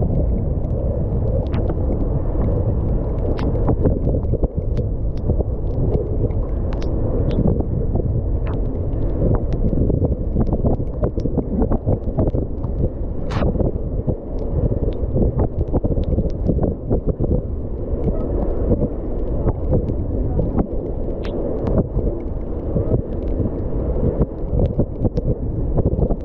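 Wind buffeting the microphone of a camera on a moving mountain bike, mixed with tyre noise on wet asphalt. Scattered sharp clicks run throughout.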